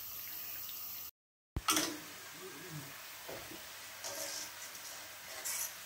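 Hot oil sizzling steadily as small flour-and-margarine dough chips deep-fry in a pan, with a short gap of silence about a second in.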